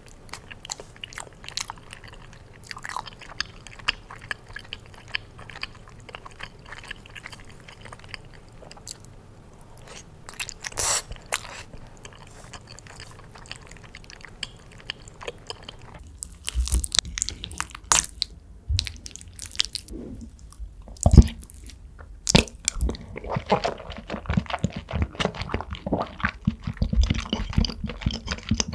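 Close-miked chewing and biting of lasagna, a dense run of short smacking mouth clicks. About sixteen seconds in the background changes and the chewing grows louder and busier.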